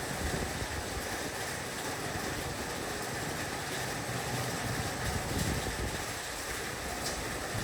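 Heavy rain falling steadily on a roof, an even, dense hiss with no let-up.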